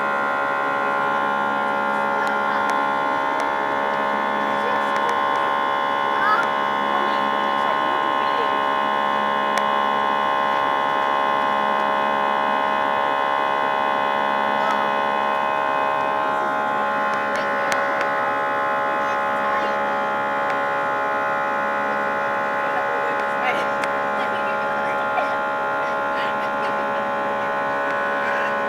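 Airbus A320 cabin noise in flight: the jet engines' steady drone, with many steady whining tones layered over a low hum and airflow rush, and a few faint clicks.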